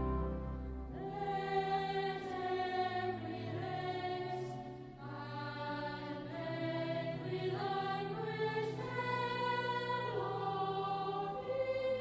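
Slow choral music: several voices singing long, held notes that change pitch every second or so.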